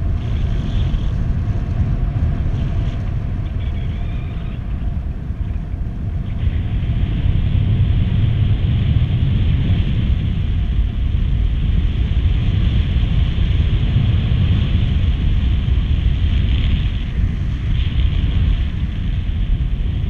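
Wind rushing over the microphone of a camera carried by a paraglider pilot in flight: a loud, steady low rumble of buffeting with a hiss above it, growing a little louder and brighter about six seconds in.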